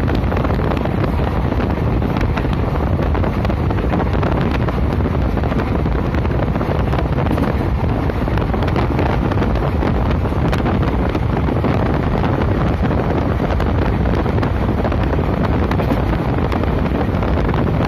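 Steady wind buffeting the microphone over the noise of a moving train running along the track.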